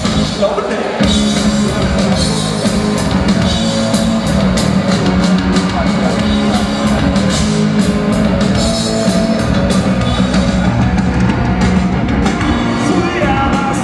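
Live rock band playing loudly, with drums and electric guitars; the drums come in hard about a second in.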